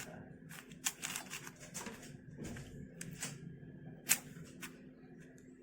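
Irregular plastic clicks and clacks of a YJ MGC 4x4 speedcube's layers being turned by hand, with sharper clicks about a second in and about four seconds in.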